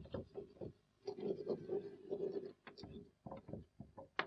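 Chalk writing on a blackboard: a run of short scraping and tapping strokes, some with a faint squeak, with a brief pause about a second in.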